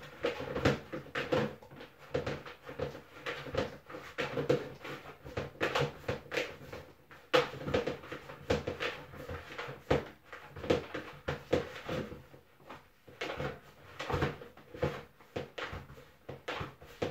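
Flour dough for boiled dumplings being kneaded by hand at a kitchen counter: irregular knocks and thumps, a couple a second, over a steady low hum.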